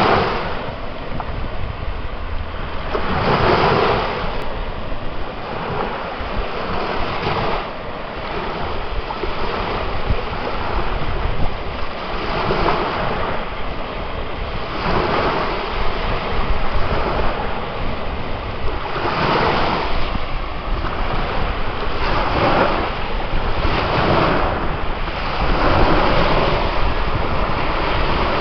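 Ocean surf: waves breaking and washing up one after another over a constant rush of water, each wave swelling up every few seconds.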